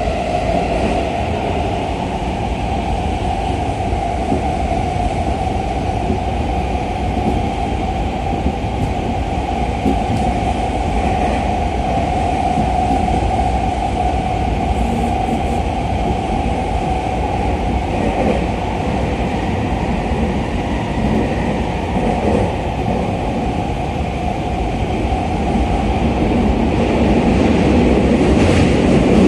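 Running sound inside a Tokyu 2020 series electric train car in a subway tunnel: a steady rumble of wheels on rail with a steady humming tone above it, growing louder near the end.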